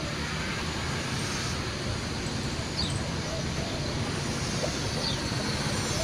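Steady road traffic noise, with two short high chirps partway through.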